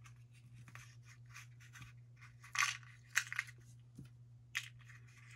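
Fingers handling a small box and tiny miniature pieces on a tabletop: a few short scratchy rustles and a click, the loudest about halfway through, over a steady low hum.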